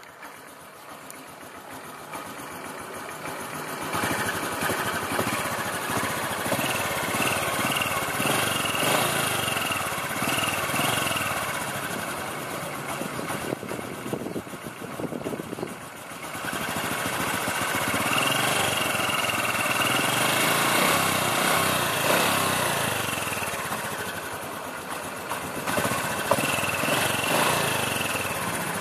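Honda Future 125 (2012) motorcycle engine running, its revs rising about four seconds in, dropping back briefly midway and rising again. It makes a strange noise that an overhaul with genuine Honda parts has not cured.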